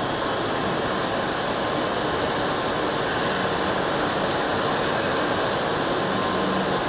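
CNC milling machine cutting a metal part under flood coolant: a steady, even mix of spindle and cutting noise with the hiss of coolant spray, and a faint steady whine in it.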